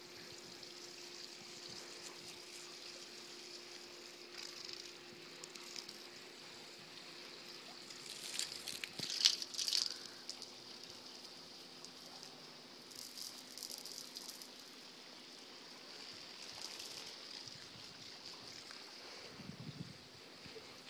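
Water spraying from a garden hose: a faint steady hiss, with louder bursts of spray and splashing about eight to ten seconds in and again around thirteen seconds.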